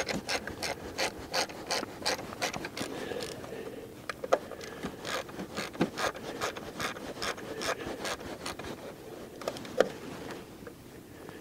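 Hand ratchet clicking as it backs out the bolt on a camshaft position sensor, a steady run of about three or four clicks a second that stops about ten seconds in.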